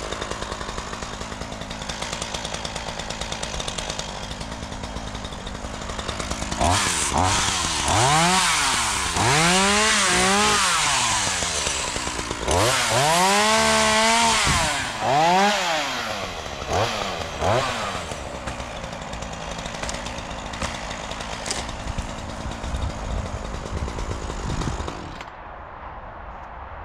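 Gas chainsaw idling, then revved up and down repeatedly for about ten seconds as it cuts, before settling back to idle. The sound drops away abruptly near the end.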